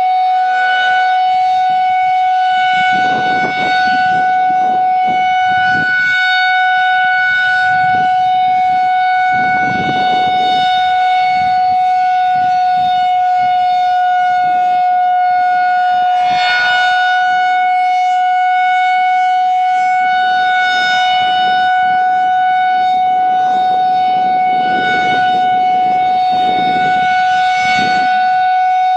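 Federal Signal 2001-130 outdoor warning siren, a single-tone rotating electromechanical siren, sounding a steady alert tone during its monthly test. The pitch holds level throughout, with a slow swell every six or seven seconds as the rotating head sweeps past.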